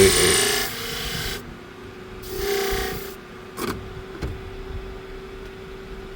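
Steel blade of a curved grooming shear being drawn by hand across a flat sharpening hone in two long rasping strokes, with a steady low hum underneath.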